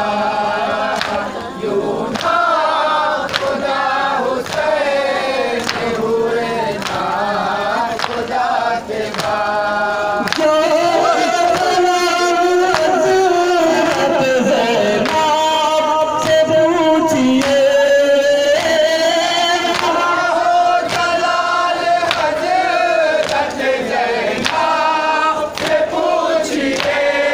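Group of men chanting a lament in unison, with sharp slaps about once a second from rhythmic chest-beating (matam). The chanting grows louder about ten seconds in.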